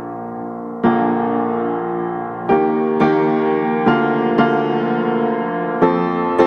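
Background piano music: slow, gentle notes and chords, a new one struck every half second to a second and a half.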